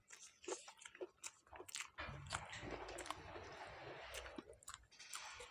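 Close-miked eating sounds: a few sharp mouth clicks and bites, then about three seconds of steady crunchy chewing starting about two seconds in.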